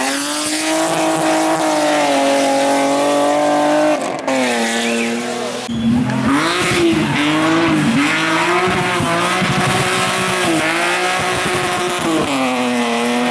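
Hillclimb race car engine at high revs, holding a steady note, with a sharp drop in pitch about four seconds in. Then a run of quick dips and rises in pitch as the driver works the gears and throttle, before the note settles and falls again near the end.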